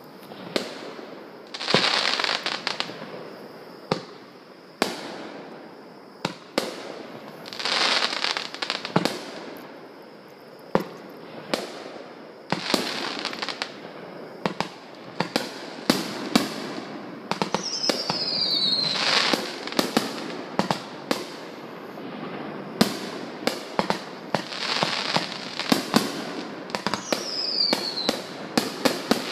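Aerial fireworks in a finale barrage: many shells bursting with sharp bangs in quick succession, with stretches of crackling between them. Twice a short whistle falls in pitch.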